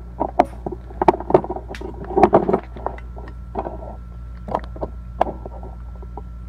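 Plastic clicks and knocks from a ring light being handled, its back cover pushed back into place: a quick cluster in the first two and a half seconds, then a few scattered taps. Under them runs a steady low hum and a faint steady high tone.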